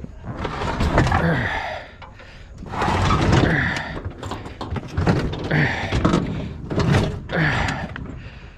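A heavy metal scrap item being dragged and shoved into place, with repeated scraping, screeching and clunking of metal on metal in about five separate bursts.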